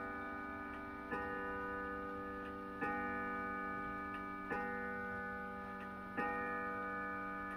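Howard Miller Lewis pendulum wall clock striking the hour at 8 o'clock: four strokes about 1.7 seconds apart, each left ringing into the next. A clock ticks faintly underneath.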